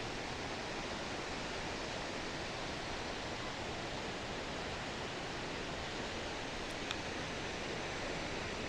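Steady roar of a high waterfall pouring into its plunge pool.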